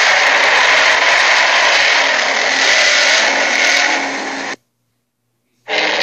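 Red Claw's cartoon sharptooth roar sound effect, played through a small device's speaker and re-recorded: one long, harsh roar that cuts off about four and a half seconds in, then a second roar starting about a second later.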